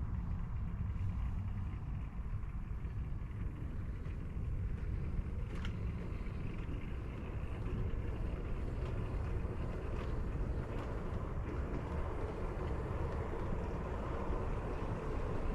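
Model train running along the track: a steady low rumble with a few faint clicks from the wheels and rail joints.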